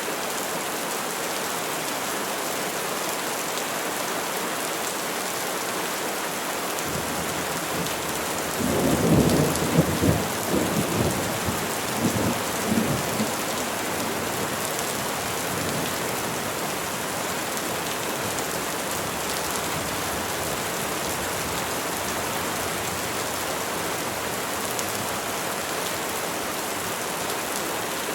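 Steady rain falling on trees, with a rumble of thunder rolling in about eight seconds in and dying away over about five seconds.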